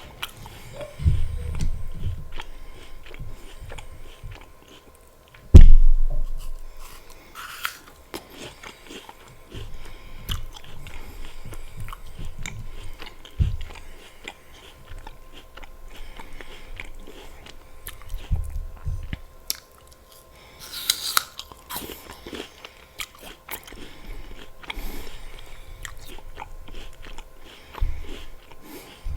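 Close-miked biting and chewing of apple slices with peanut butter: crisp crunches and wet chewing at an irregular pace. A loud, sharp low thump comes about five and a half seconds in.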